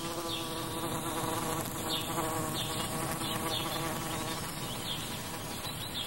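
A steady insect buzz, like a fly, that thins out near the end, with a few short, faint, high chirps above it.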